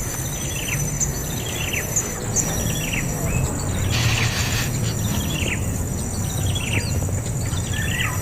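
A bird giving short descending chirps, about one a second, over a steady high-pitched insect drone.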